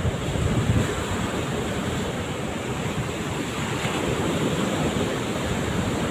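Rough surf breaking and washing up a sandy beach, a steady rush of churning waves, with gusty wind buffeting the microphone.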